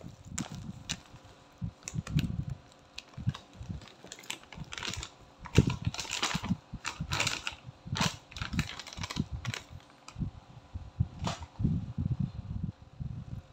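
A plastic-gloved hand squelches through a wet minced pork filling in a plastic bowl. Then a packet of flour crinkles and crackles sharply for several seconds as it is tipped out onto the mixture, and the soft squelching comes back near the end.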